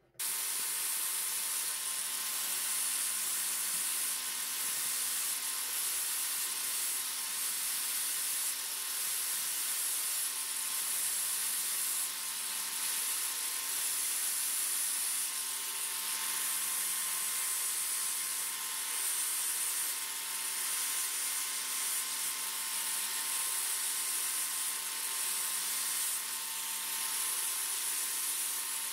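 A random orbital sander running against a wooden handle that spins in a drill used as a makeshift lathe: a steady high hiss of sanding over the motors' steady whine, starting abruptly.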